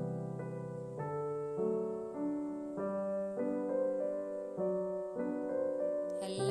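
Background piano music: a gentle run of held notes and chords, a new one about every half second.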